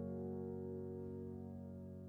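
Background music: a sustained keyboard chord slowly fading.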